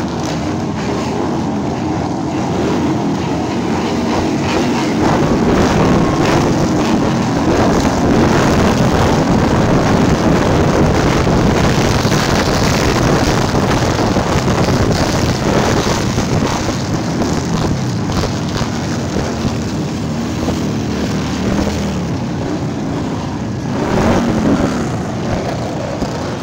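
Several motorcycles riding past one after another with their engines running, a continuous loud engine sound that is loudest through the middle stretch.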